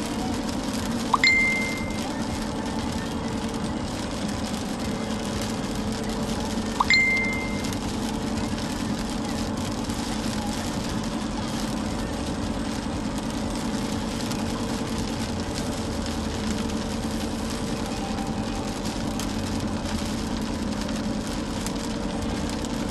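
Inside a car driving through heavy rain: a steady hum and hiss of engine, tyres and rain. Two short, bright electronic dings sound about a second in and again about seven seconds in.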